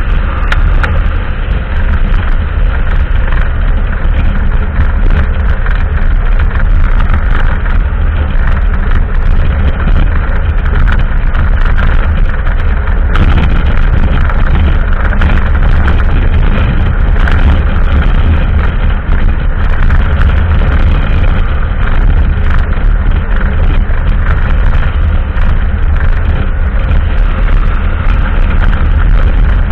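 Kasinski Mirage cruiser motorcycle running steadily at highway speed, heard from the rider's seat: engine and road noise under loud wind rumble on the microphone.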